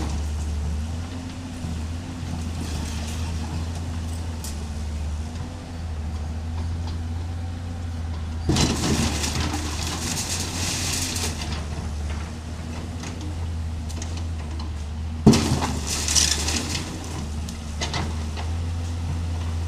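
Hydraulic excavator's engine running steadily as it demolishes a wooden house. Two long spells of crashing and splintering timber and sheet metal break in, about eight seconds in and again about fifteen seconds in, the second opening with a sharp bang, the loudest moment.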